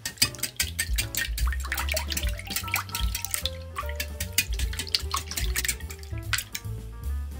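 Stainless wire whisk beating milk and eggs in a glass bowl: rapid clinking against the glass and splashing of the liquid, over background music.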